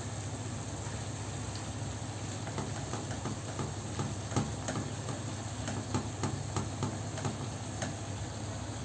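Onion and garlic sizzling in a frying pan, with a spoon clicking and scraping against the pan as they are stirred, from a couple of seconds in, over a steady low hum.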